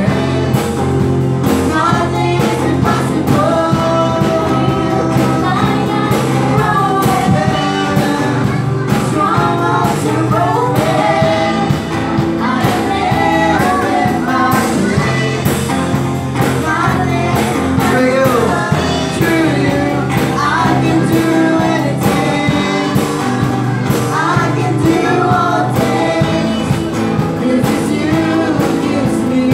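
Live worship band playing: two girls singing the melody together, backed by electric guitars and a drum kit keeping a steady beat.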